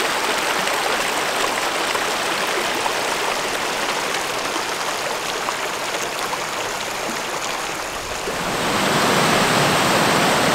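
Shallow river rippling and rushing over rocks. About eight seconds in, it gives way to a louder, fuller, steady rush of water spilling over a low weir.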